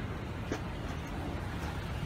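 Steady low rumble of outdoor background noise, with a faint click about half a second in.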